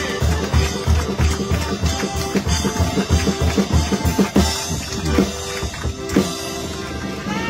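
Live folk music from a button accordion and a friction drum (putipù), the drum's stick rubbed through its skin to give low rhythmic grunts about four times a second. Near the end the drum thins out and a held accordion chord remains.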